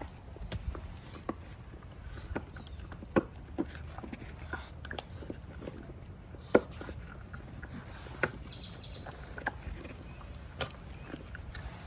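Bulldog puppies moving about: irregular light clicks and taps, with a few short, faint, high squeaks.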